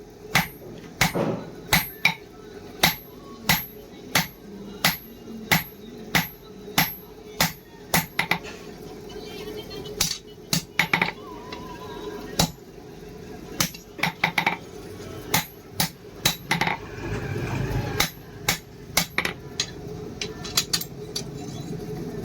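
Hammer blows ringing on steel on an anvil, forging leaf-spring steel: a steady beat of about three strikes every two seconds, a short pause about eight seconds in, then strikes that come more irregularly.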